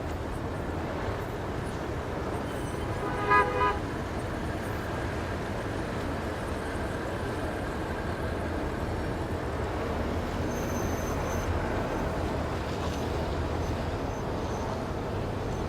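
A short car horn toot about three seconds in, over a steady low rumble of city traffic.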